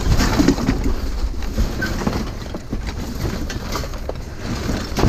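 Debris shifting and knocking inside a construction dumpster as it is sorted by hand and stepped on, over a steady low rumble of wind or handling noise on the microphone.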